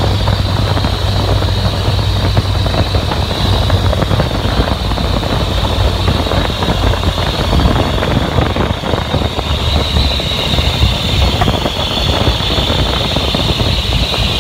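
Open-cockpit biplane in flight: the engine and propeller drone steadily, mixed with loud wind rushing over the cockpit and buffeting the microphone.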